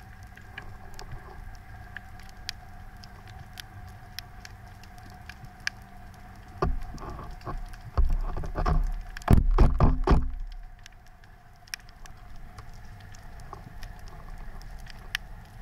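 Underwater ambience: a steady crackle of scattered sharp clicks from the reef, over a faint steady hum. About halfway through there is a loud stretch of low knocks and rumbling lasting about four seconds, the loudest sound here.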